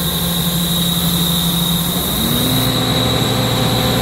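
Ingersoll Rand VHP 400WIR portable diesel air compressor running steadily, with a steady high whine over the engine hum. About halfway through, the engine note steps up in pitch.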